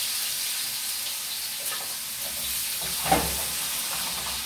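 Hot cooking oil sizzling steadily in a pan on the stove, with one sharp clank about three seconds in.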